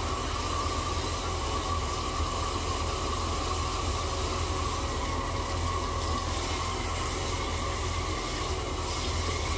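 Tap water running steadily into a sink, left on to warm up.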